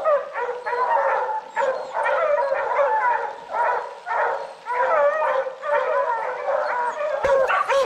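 A pack of bear hounds baying at a treed bear: many overlapping barks and bawls, one after another without a break. This steady baying at one spot is the hounds' signal that the bear is up a tree.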